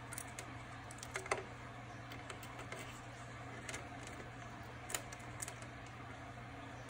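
Scattered light clicks and taps of refrigerator ice-maker parts being handled during the repair, the sharpest a quick pair about a second in, over a steady low hum.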